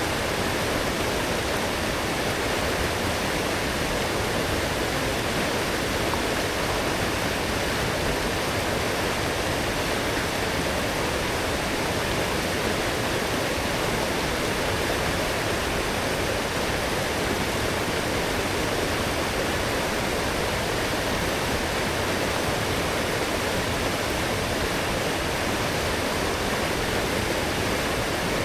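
Strong forest stream swollen after heavy rain, water rushing steadily over its bed.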